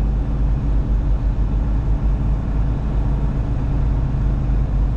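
Semi truck's diesel engine running steadily while the truck creeps forward, heard from inside the cab: a continuous low drone.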